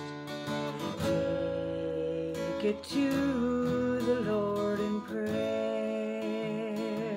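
A woman singing a gospel worship song while strumming an acoustic guitar, holding long, wavering notes over the chords.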